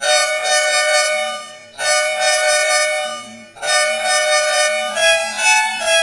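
Bus air horn sounded in three long, loud blasts, the third shifting in pitch partway through.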